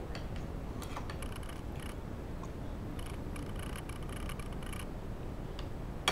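Close-up chewing, soft wet mouth sounds at about three to four chews a second, with a spoon clicking lightly against a plate a few times and one sharper clink at the very end.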